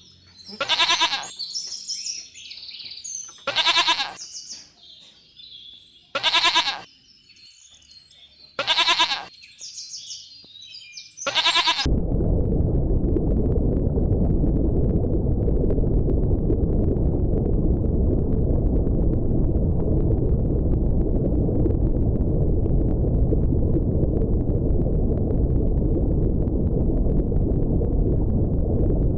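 A goat bleating five times, each cry about a second long and a couple of seconds apart. About halfway through, a loud steady low rushing noise starts and carries on to the end.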